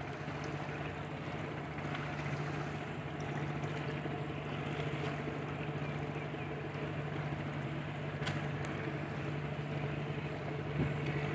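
Steady low hum of a moored ship's machinery running, over a constant wash of harbour background noise.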